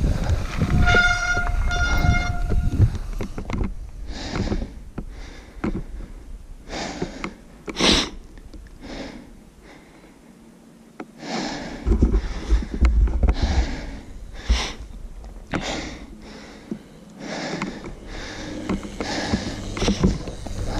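A mountain bike rolling down a dirt singletrack, heard from a body-mounted action camera: tyres crunching over dirt and gravel, the bike rattling, and wind buffeting the microphone in gusts. About a second in come two short, steady squealing tones.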